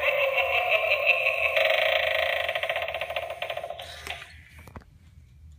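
Halloween novelty doorbell playing its spooky electronic sound effect through its small speaker: a warbling, fluttering tone that fades and cuts off about four and a half seconds in.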